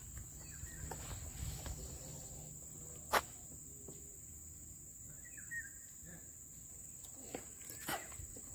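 A steady high-pitched insect drone runs throughout. Over it are soft footsteps on pavement, a sharp click about three seconds in, and a brief chirp a little past the middle.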